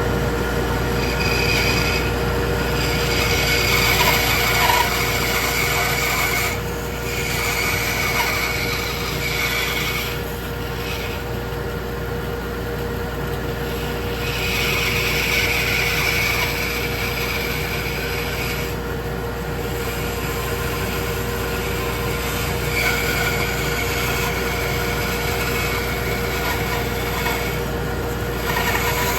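Bandsaw running with a steady hum while its blade cuts through wood, cutting out the centre of a drawer blank. The cutting noise comes and goes, easing off for a few seconds several times.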